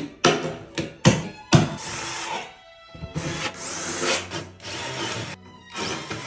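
A few sharp clicks from a hollow-wall anchor setting tool being squeezed, then a cordless drill running in five short bursts as it drives screws, all over background music.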